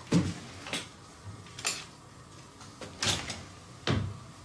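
Irregularly spaced knocks and clatters, about five in four seconds, with a low thud in the first and the last.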